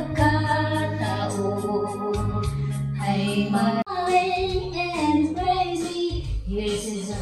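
Background music: held chords at first, cutting abruptly about four seconds in to a singing voice over music.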